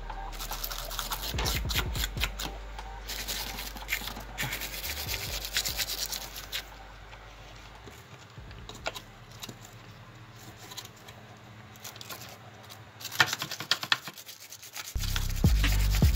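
Hand file scraping battery terminals clean of dirt and corrosion in quick repeated strokes. The strokes thin out about halfway through, a few clicks follow, and a low steady hum comes in near the end.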